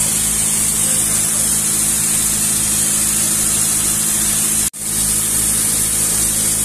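A fishing boat's engine running steadily under way, with water rushing and splashing along the hull. The sound drops out sharply for an instant about two-thirds of the way through, then carries on unchanged.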